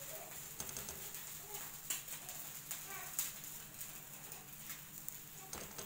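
Quiet room noise with a steady low hum and a few light clicks, the sharpest about two seconds and three seconds in.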